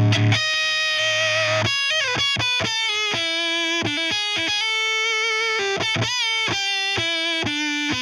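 Electric guitar played through an engaged Veri-Tone Beehive pedal with a distorted tone. A chord is struck and rings for about a second and a half, then a single-note lead line of picked notes follows, some bent or with vibrato.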